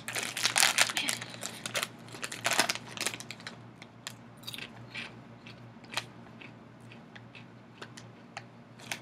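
A potato chip bag rustled and crinkled as a hand reaches into it, then a Kettle brand kettle-cooked potato chip bitten and chewed, the crunches sharp at first and growing sparser toward the end.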